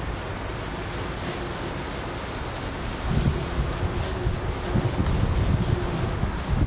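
Hand trigger spray bottle squirting water onto an alloy wheel in quick repeated pumps, about three squirts a second, over a steady hiss. From about three seconds in, louder low handling noise joins.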